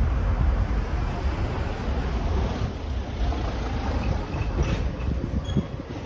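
Wind buffeting the microphone in a low, fluttering rumble, over general street noise.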